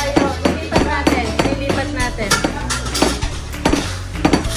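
Kitchen cookware and utensils clinking and clattering as they are handled and set down on the counter, a quick irregular run of knocks, over background music with a steady bass line.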